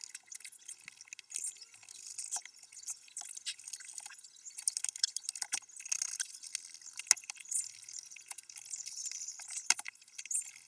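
Irregular light clicks, clinks and scrapes of hand work on small hard objects, with sharper single clicks about 7 and 9.7 seconds in.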